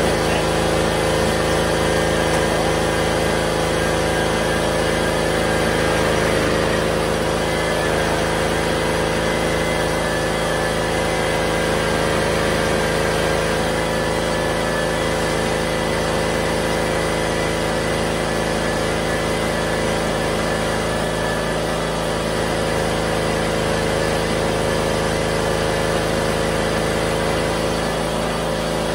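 John Deere Z255 zero-turn mower's engine running steadily just after starting, with the rear wheels raised so the sealed Hydro-Gear transmissions turn them unloaded to bleed air after an oil change.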